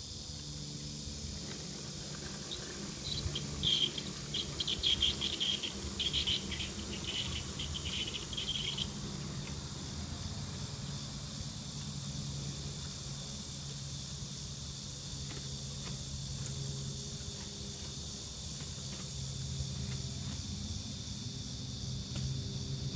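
Insects chirping in a steady high chorus, with a run of louder, rapid chirps for several seconds early on, over a faint low steady hum.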